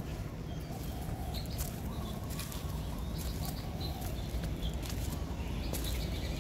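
Birds calling, with short high chirps scattered through, over a steady low rumble.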